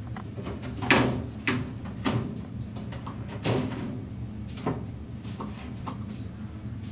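Handling noises at a glass terrarium as a Colombian boa is lifted out through the top: several sharp knocks and scrapes, the loudest about a second in, over a low steady hum.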